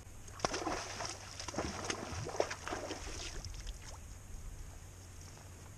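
Irregular splashing and small knocks of water and gear around a fishing kayak, a flurry lasting about three seconds and then settling.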